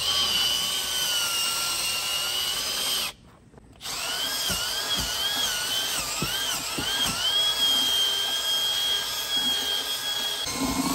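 Power drill with a paddle mixer stirring thinset mortar in a plastic bucket: a steady motor whine that stops about three seconds in, then starts again, its pitch wavering up and down as the trigger speed changes.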